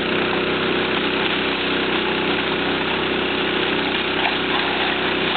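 Tracked excavator's diesel engine running steadily at a constant pitch.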